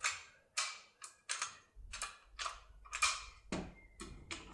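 Sharp metallic clicks from a Gerda ZX lock being worked with an assembled decoder key, about three a second and somewhat uneven, as the key turns the lock smoothly without wiggling.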